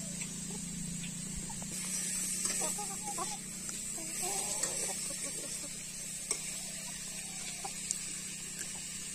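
Chickens clucking for a few seconds, with a steady high hiss behind, then a few sharp clicks near the end.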